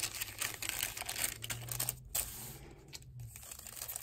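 Paper rustling and crinkling in irregular bursts as the paper pages and inserts of a handmade junk journal, a paper popcorn bag and a fiber-paper page, are handled and turned.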